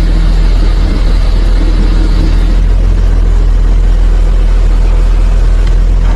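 A heavy engine running steadily, a deep continuous drone.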